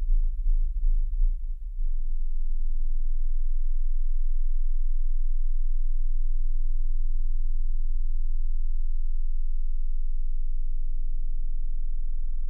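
Blue whale song phrase played through loudspeakers: a very low moan, pulsing for the first two seconds, then one long steady tone that slowly swells.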